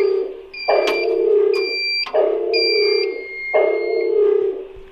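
Emergency alarm system sounding its warning tone: a loud, steady tone repeated about every one and a half seconds, with thinner high-pitched beeps over it.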